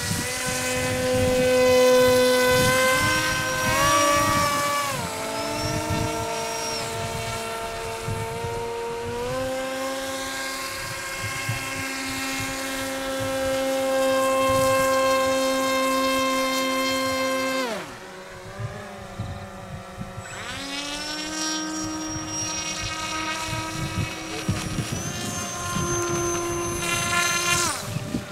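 Electric motor and propeller of a radio-control model whining, the pitch holding steady and then stepping up and down as the throttle changes. The pitch drops away sharply about two-thirds of the way through, winds back up a couple of seconds later, and drops again near the end.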